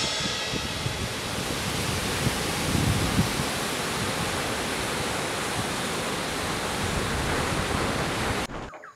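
Ocean surf breaking and washing on the shore, a steady even rush of noise that cuts off suddenly near the end.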